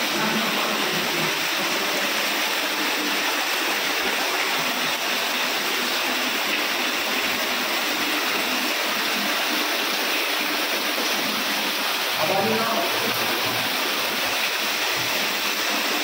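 Water gushing steadily out of a horizontal side bore into an open well, a continuous even splashing rush: the bore has struck water.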